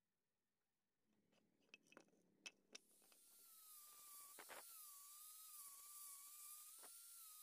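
Angle grinder fitted with a sanding pad, running against wooden knife-handle scales: a faint, steady high whine with a slightly wavering pitch, which sets in about three seconds in after a few light clicks of handling.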